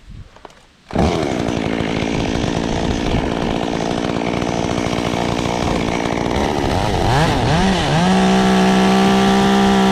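Chainsaw cuts in suddenly about a second in and runs at high revs. Past the middle its speed dips and climbs back a few times, then it holds steady and high near the end.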